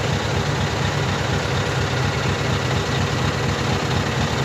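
Scania V8 diesel truck engine on an open exhaust pipe, idling steadily with an even low pulse, heard from inside the cab.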